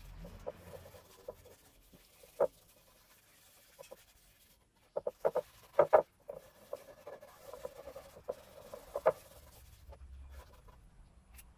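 A gloved hand rubbing a wet wood finish over a flat meranti board, making irregular scuffing, squeaky strokes. A few louder strokes come about two and a half seconds in, around six seconds and around nine seconds.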